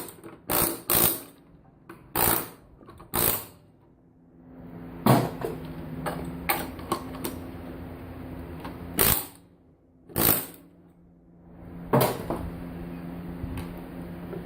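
Irregular sharp clanks and knocks of circuit boards and metal parts being handled and struck during e-waste stripping, about a dozen in all. A steady low hum runs under them from about four seconds in, stops for a few seconds, then returns near the end.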